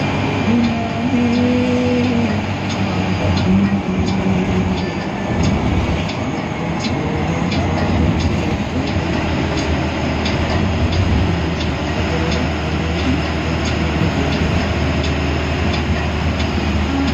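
Cabin noise inside a moving air-conditioned bus: steady engine and road drone, with light rattling clicks from the bodywork throughout.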